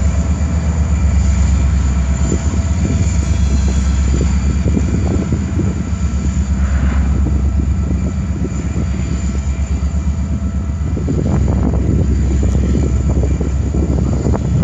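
Norfolk Southern diesel-electric locomotives running in a rail yard: a steady low engine rumble with faint steady whining tones over it.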